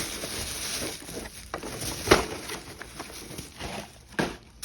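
Groceries being handled and unpacked: rustling and shuffling of packaging, with a sharp knock of an item set down about two seconds in and another near the end.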